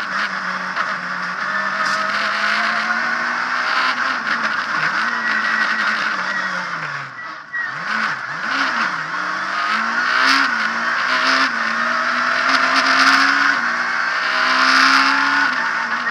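Abarth Punto S2000 rally car's naturally aspirated 2.0-litre four-cylinder engine heard from inside the cockpit at stage pace, revs climbing and dropping through gear changes. About seven seconds in the revs fall low and the engine is blipped several times in quick succession on downshifts, then it pulls hard again.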